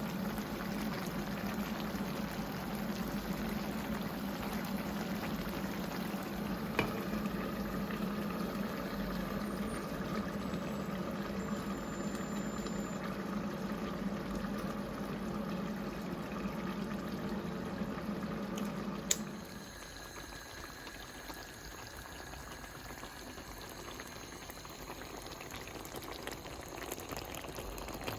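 Cabbage stew simmering and bubbling in a pot on the stove, over a steady low hum. About two-thirds of the way through, a click is followed by the hum stopping, and the bubbling goes on more quietly.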